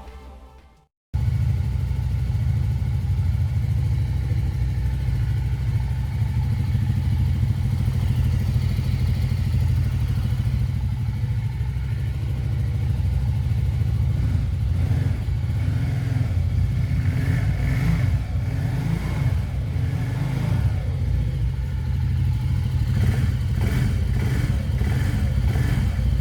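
TGB Blade 550 quad's single-cylinder engine starts being heard about a second in and runs steadily at idle. Some light clicking or clatter is heard in the second half.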